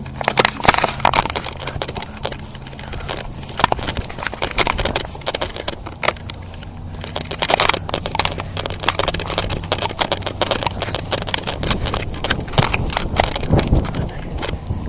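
Irregular crackling and crunching, like footsteps and handling through dry leaves and brush, over a low steady hum that fades out about halfway through.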